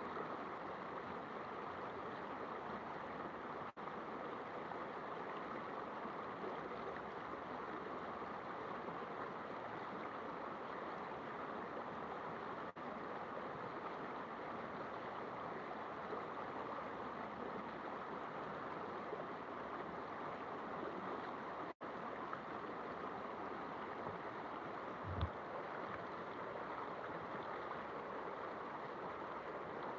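River water rushing steadily, with a brief low thump about 25 seconds in.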